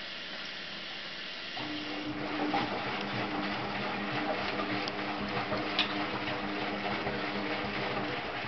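Bendix 7133 Autowasher Deluxe Electronic washing machine turning its drum during a rinse: the motor starts with a steady hum about one and a half seconds in, with water and sudsy laundry sloshing in the drum, and stops near the end.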